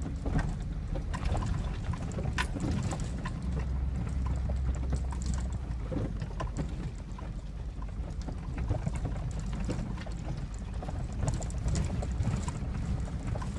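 GMC Sierra pickup's 5.3 V8 rumbling low while the truck drives slowly over a rough woods trail, with scattered knocks and rattles from the bumps.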